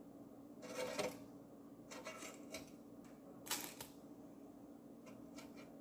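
Cooked coconut shrimp being picked by hand out of an air fryer basket and set on a plate: four or so brief scrapes and light knocks, over a faint steady hum.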